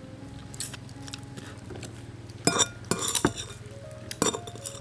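Tableware clinking during a meal: a handful of sharp clicks and clinks, the loudest cluster about two and a half to three and a half seconds in, over a low steady hum.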